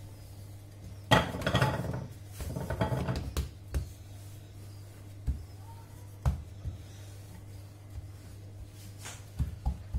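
Wooden rolling pin rolled over yeast dough on a floured marble countertop: two longer rolling strokes in the first few seconds, then a few short knocks of the pin against the counter.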